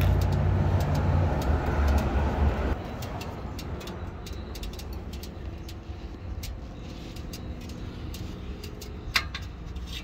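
Low vehicle rumble, loud for the first three seconds, then dropping suddenly to a quieter steady hum, with scattered light clicks and one sharper click near the end.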